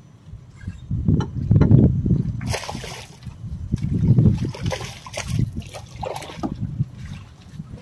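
Water splashing and sloshing beside a small fishing boat in several bursts, the loudest about a second in and again about four seconds in.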